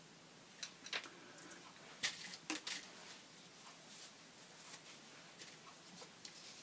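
Thin plastic craft stencils being shuffled and laid on a table: a scattered run of faint, light clicks and rustles, the sharpest about two seconds in.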